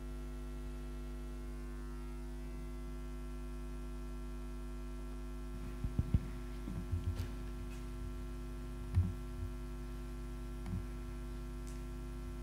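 Steady electrical mains hum in the sound system, with a few soft, low thumps about halfway in and again around nine seconds.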